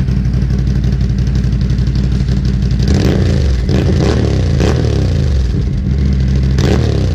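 Can-Am Renegade XMR 1000R's V-twin engine running at idle through a freshly installed RJWC stainless dual exhaust. About three seconds in, the note deepens and a few brief sharp clatters break over it.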